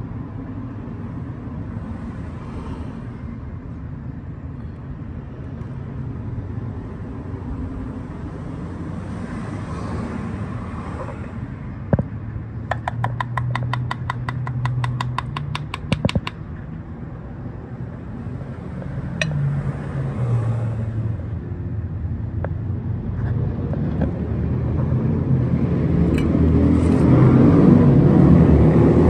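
A vehicle engine running with a low hum. A rapid series of clicks lasts a few seconds around the middle, and the engine noise grows louder near the end.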